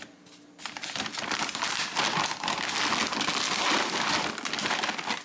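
Clear plastic bag of dry cat kibble crinkling as it is handled, starting about a second in.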